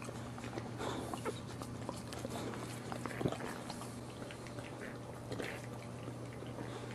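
Newborn boxer puppies giving short, thin squeaks while the mother dog licks and noses them, with scattered wet licking clicks over a steady low hum.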